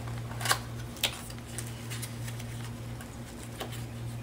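A small cardboard parts box being handled and its flap opened: two sharp clicks in the first second and a fainter one near the end, over a low steady hum.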